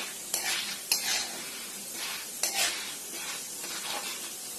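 Popcorn kernels being stirred in hot oil in a pan: a steady sizzle with scraping strokes against the pan, three of them louder. The kernels are heating and not yet popping.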